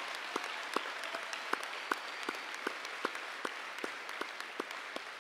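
Audience applause, with one person's steady claps close to the microphone standing out at about two and a half claps a second.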